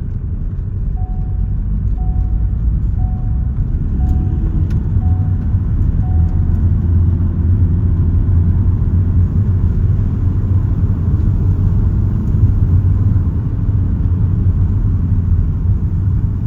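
A motor vehicle running with a steady low rumble, and a short beep repeating about once a second for the first six seconds or so.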